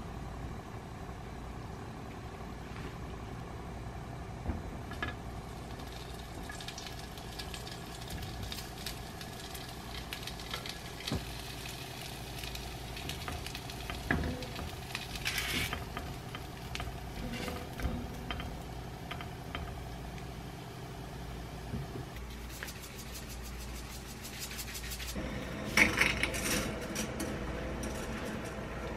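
Breaded chicken pieces sizzling and crackling in oil in a nonstick frying pan, with the odd click of metal tongs against the pan over a steady low hum. Near the end, a louder clatter and rustle as dry spaghetti is dropped into a steel pot of water.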